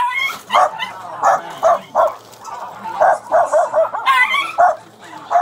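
Small dogs barking repeatedly, about two sharp barks a second, with a couple of higher, rising yelps at the start and about four seconds in.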